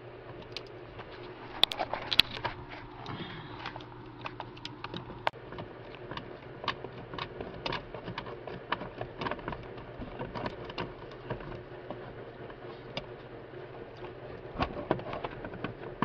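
Irregular small clicks and ticks of a 7mm wrench turning out the bolt that holds the ignition switch's wiring connector together, with the plastic connector and wiring shifting, over a faint steady hum.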